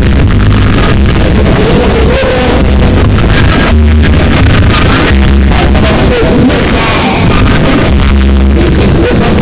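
Loud music played through a party DJ sound system (sonido), with a heavy bass pattern and a melody line over it.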